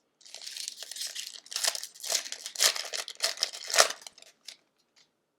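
A hockey card pack's wrapper crinkling and tearing as it is opened by hand, in a run of irregular crackles that is loudest near the end.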